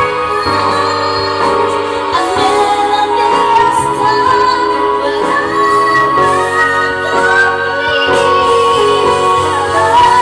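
A woman singing through a handheld microphone over a backing track with a steady beat.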